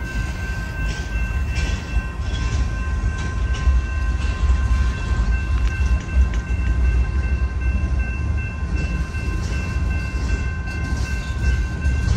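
BNSF manifest freight train's cars rolling past over the diamond crossing: a heavy, steady low rumble with irregular wheel clacks. A steady high tone rings over it throughout.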